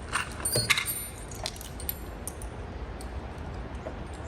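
Small metal keys clinking as they are handled: several light clinks in the first three seconds, then quieter.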